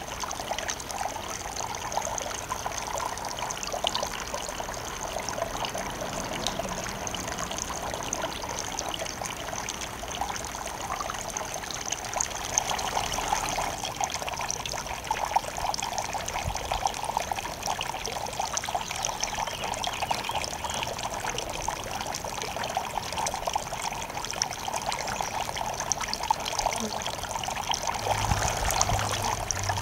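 Garden fountain water trickling and splashing steadily over rocks.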